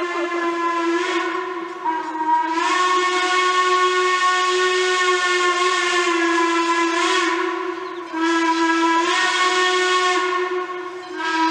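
Steam whistle of Wilmington & Western No. 58, a 1907 Baldwin 0-6-0 steam locomotive, blowing long blasts. Each blast holds a steady chord over a hiss of steam and rises a little in pitch as it opens. There are brief breaks about two seconds in, about eight seconds in and shortly before the end.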